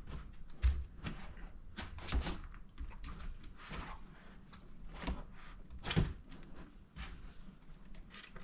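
Irregular light taps and knocks, the loudest about six seconds in, from a Dalmatian moving about on and around a hard-shelled Gunner G1 Intermediate dog kennel.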